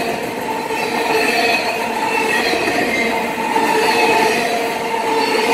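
Freight train of autorack cars rolling past close by: steady rumble of steel wheels on rail, with wavering high-pitched wheel squeal that comes and goes.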